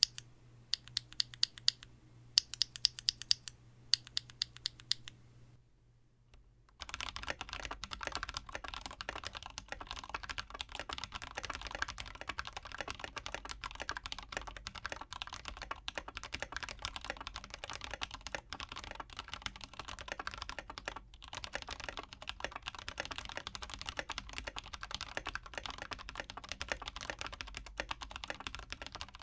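Mechanical keyboard with lubed Panda tactile switches being typed on. For about five seconds there are short runs of separate keystrokes, then a brief pause, then fast continuous typing.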